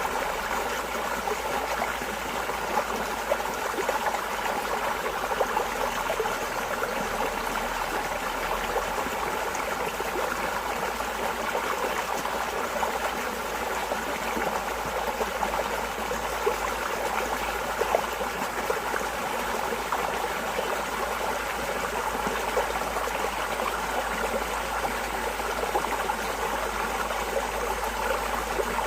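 Running water in a stream, a steady trickling flow with many small splashes.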